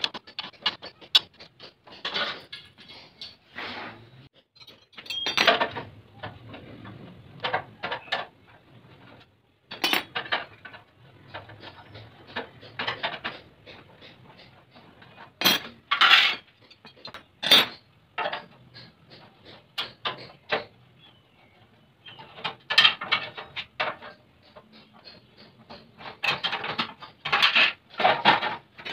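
Metal hand tools and loose parts clinking, rattling and scraping against a 390cc generator engine and its steel frame during disassembly, in irregular bursts with a few sharp knocks.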